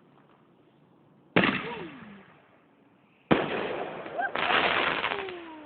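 Consumer firework shells going off: a sharp bang about a second and a half in, a second bang a couple of seconds later, then a dense crackling burst that fades out.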